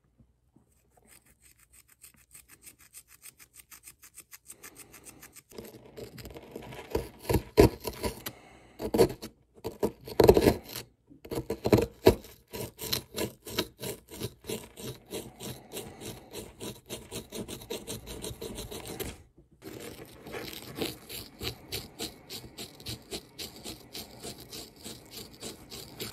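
A small plastic digging tool scraping and chipping at a hardened plaster dig-kit block in quick repeated strokes. The strokes start faint, grow louder after about five seconds and stop briefly now and then. The block is being scraped away to free a gemstone buried inside.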